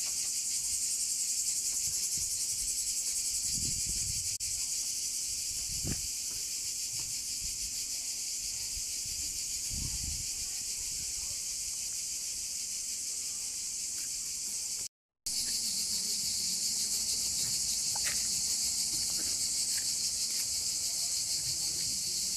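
A steady chorus of cicadas buzzing, a dense high-pitched drone that cuts out for a moment about two-thirds of the way through.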